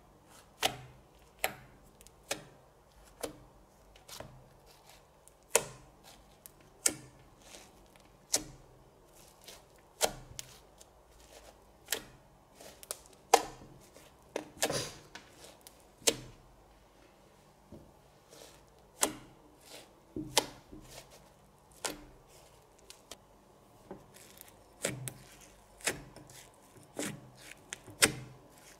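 Fingers poking and pressing glitter slime made from clear glue, giving sharp sticky clicks at irregular intervals, roughly one a second.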